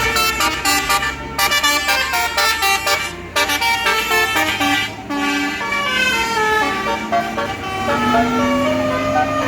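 Bus basuri telolet horn playing a multi-note melody, with quick short notes at first, then longer held notes and a sliding note near the end. A bus engine hums low underneath.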